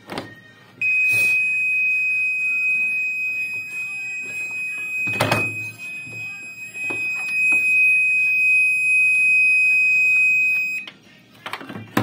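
ABBA washing machine's electronic buzzer sounding one long, steady high-pitched beep of about ten seconds, which cuts off abruptly. This is the machine's alarm while it shows an E3 error code. A few knocks from hands handling the machine's top panel come through, the loudest about five seconds in.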